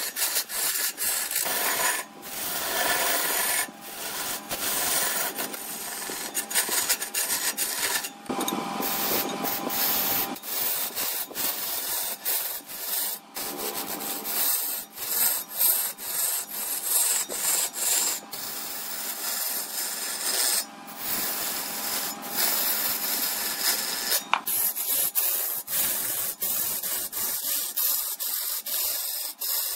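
Red incense wood spinning on a wood lathe against a hand-held turning tool: a rough, continuous scraping hiss over a faint steady whine. It breaks off briefly many times, and near the end it turns to a thinner, higher hiss.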